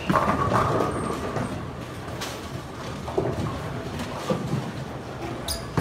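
Bowling alley din: balls rolling down the lanes and pins clattering, loudest in the first second, with scattered sharp knocks after.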